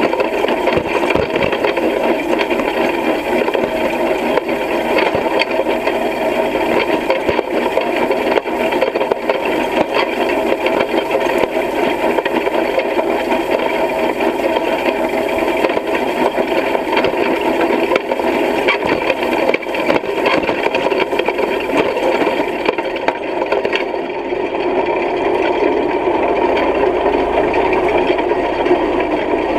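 Hay rake's reel and tines rattling and clattering steadily as the rake is pulled across the field, a dense run of small metal clicks.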